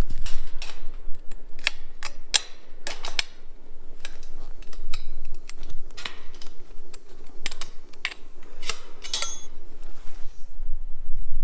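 Irregular clicks and light metallic clinks of fence hardware being handled and worked by hand, with a quick rattle of ringing clinks about nine seconds in.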